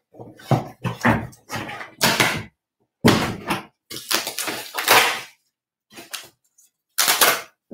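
Mailing packaging torn and pulled open by hand: a run of short ripping, rustling bursts with brief pauses between them.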